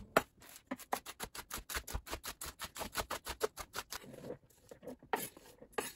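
Chef's knife chopping romaine lettuce fast on a wooden cutting board, about eight quick cuts a second for nearly four seconds. Then a soft scrape and a few knocks as the chopped lettuce is pushed off the board into a bowl.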